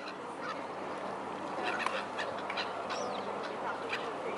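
Riverside ambience: a steady background murmur with scattered short waterfowl calls, quick chirps and brief rising-and-falling cries.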